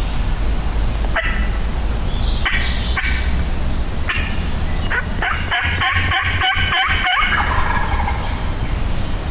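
Wild turkey gobbler gobbling: a few shorter calls, then one long rattling gobble about five and a half seconds in.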